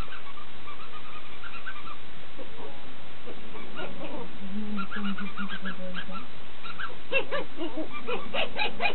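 Pomeranian puppy giving soft, high yips and whines, scattered from about a third of the way in and thicker near the end.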